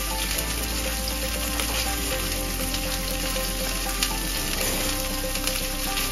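Ribeye steaks sizzling in olive oil in a Teflon nonstick frying pan over a gas flame, a steady frying hiss with small crackling pops. There is a sharper pop about four seconds in.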